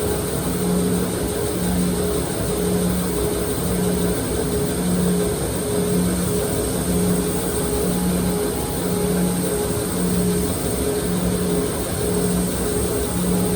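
Electric sharpening grinder running steadily while a knife blade is worked on it. A low hum pulses a little more than once a second over a steady high whine.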